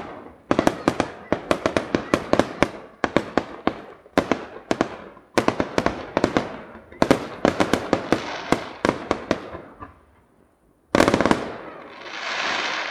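Fireworks display: rapid volleys of sharp bangs, several a second, in runs of about a second and a half with short gaps between. Near the end the bangs stop briefly, then a loud burst is followed by a swelling hiss.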